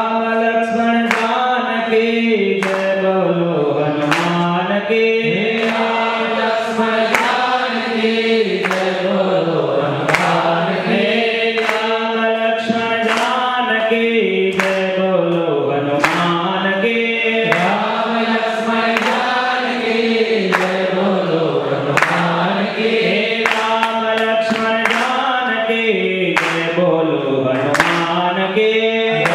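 Devotional chanting led by a man's voice through a microphone: a short melody sung over and over, each phrase dipping in pitch and rising again about every six seconds.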